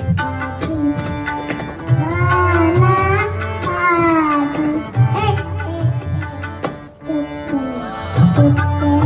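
A devotional song (bhajan) in Indian classical style: a voice sings a long, ornamented melody that slides up and down in pitch over a steady tabla rhythm.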